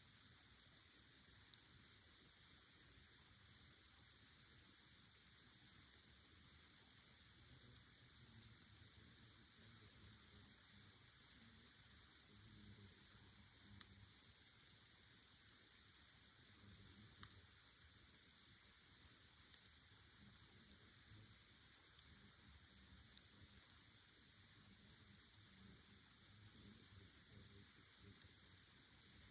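Crickets chirring in a steady, continuous high-pitched night chorus, with a few faint crackles from a campfire.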